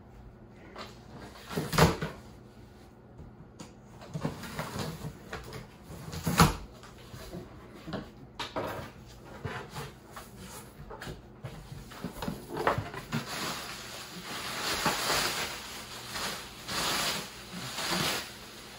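Cardboard shipping box being opened by hand: scattered clicks and two sharp thumps, about 2 and 6.5 seconds in, as the box and its flaps are handled. From about halfway, rustling of crinkly plastic packing as hands dig inside.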